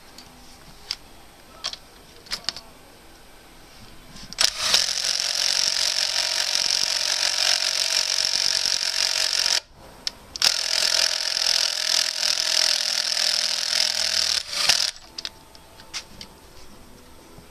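Cordless drill-driver running in two bursts, about five seconds and then about four seconds with a short pause between, driving a bolt into a metal clevis fitting. A few light metallic clicks come before it.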